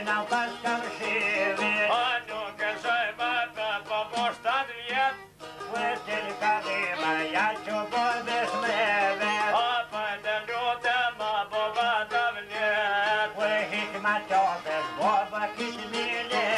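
Albanian folk ensemble playing a lively instrumental passage: a violin carries a wavering, ornamented melody over quickly plucked long-necked lutes. The music breaks off briefly about five seconds in.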